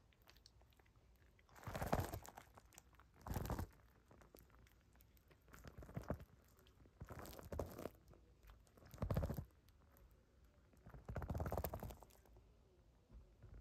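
A cat crunching dry kibble, chewing in about six short spells with pauses between.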